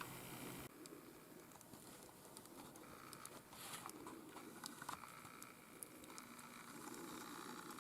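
Near silence with faint scattered small clicks and light rustling; a louder hiss cuts off under a second in.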